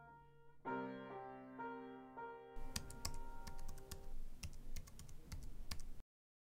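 Computer keyboard keys clicking in rapid succession, a typing sound effect that starts a little way in, over soft background music with sustained notes. All sound cuts out abruptly near the end.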